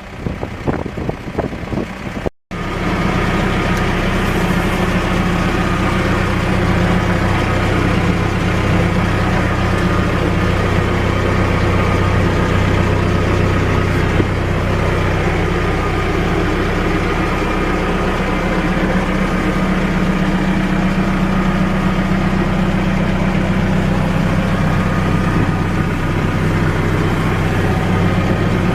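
Diesel engine of a 2009 Case 590 Super Series M backhoe idling steadily, after a short break in the sound about two seconds in.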